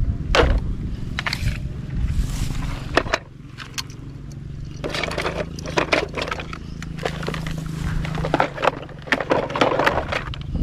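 Plastic toy vehicles being handled and rolled: repeated knocks, clatters and scrapes, busiest in the second half, over a low steady hum.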